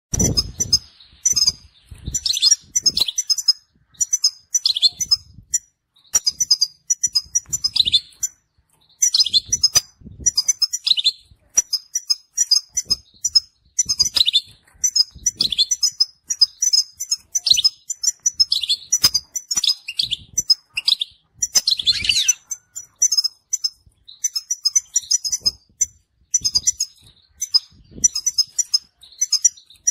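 Male European goldfinch singing in rapid twittering phrases, high-pitched, broken by short pauses and repeated throughout. The uploader calls it a fault-free song. A few low thumps are heard, one at the very start and others around a third and three quarters of the way in.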